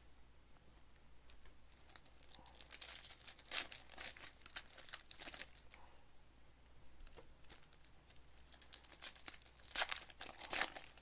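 Foil trading-card pack wrappers crinkling and tearing as they are handled and torn open by hand, in scattered bursts. The loudest burst comes about ten seconds in.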